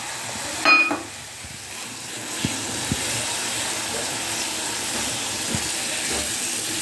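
Garlic and chilli chutney sizzling in hot oil in a pan after lemon juice is poured in, stirred with a wooden spatula with a few light knocks. A short ringing clink sounds just under a second in.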